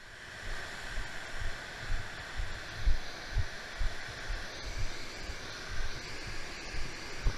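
Whitewater river rushing steadily over rapids, with low thumps about twice a second from the camera being carried at a walk.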